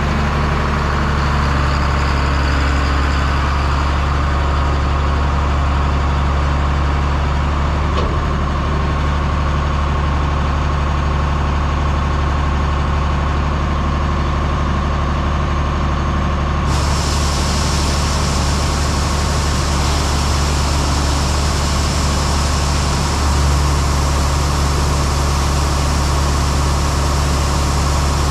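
Heavy diesel engine of harvest machinery running steadily at constant speed, with a strong low hum. A brighter hiss joins suddenly about two-thirds of the way through.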